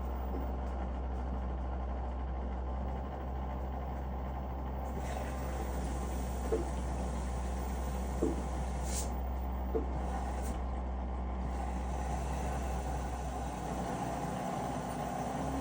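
LG WM3900HBA front-loading washer running with a steady low rumble, and a dull clunk that comes back three times in the middle, about a second and a half apart. The clunk is the strange noise the washer is making.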